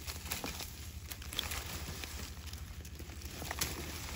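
Two Komodo dragons feeding on a goat carcass: rustling and crackling of dry leaves and gravel under their feet and the dragged carcass, with scattered sharp clicks.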